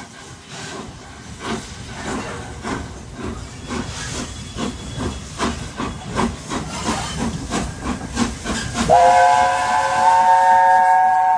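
Steam locomotive 60163 Tornado, a three-cylinder Peppercorn A1 Pacific, working under steam with a rhythmic chuff of exhaust beats that grows louder. About nine seconds in, its whistle sounds a long blast, several tones at once, over the exhaust.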